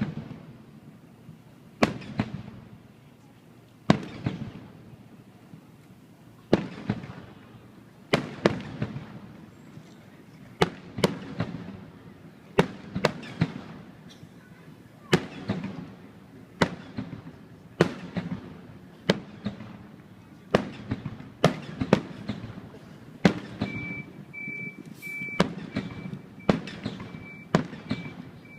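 Fireworks bursting overhead in a string of sharp booms, each trailing a rumbling echo. The booms come about two seconds apart at first and quicken to roughly one a second. A thin steady high tone joins in near the end.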